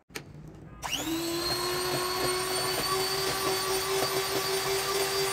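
Electric hand mixer switched on, its motor whining up in pitch to speed about a second in and then running steadily as the beaters whip an egg into creamed butter and sugar.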